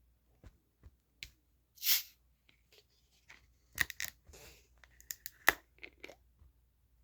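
Handling noises: a brief hiss about two seconds in, followed by a run of sharp clicks and crinkles.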